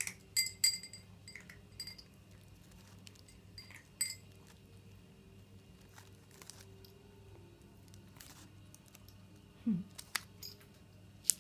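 A few sharp, ringing clinks of a cat treat dish being handled, clustered in the first second, and one more tap about four seconds in. Between them, only faint handling noise over a low steady hum.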